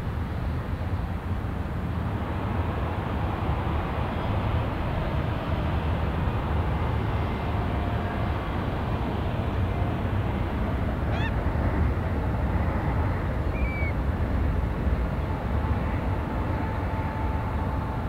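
Steady low rumble of the jet engines of Boeing 757 and 737 airliners moving on the ground. A couple of short bird chirps come about halfway through.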